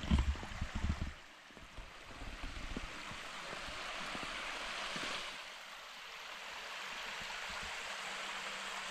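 Small creek running over rocks just above a waterfall: a steady rush of flowing water. A few low thumps sound in about the first second.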